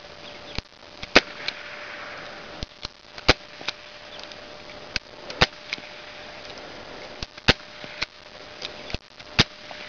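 1895 Nagant revolver firing gas-seal cartridges through a Cobra 9mm silencer: a string of short, sharp suppressed reports, the loudest about every two seconds, with fainter clicks between them.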